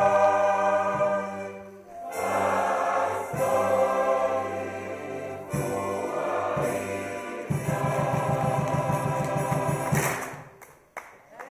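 Choir singing sustained chords that change every few seconds. A low, even pulse comes in about two-thirds of the way through, and the music fades out near the end.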